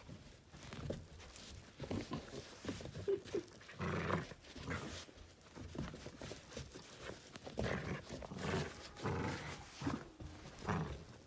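Miniature dachshund growling in play in irregular bursts while tugging at a toy, loudest about four seconds in.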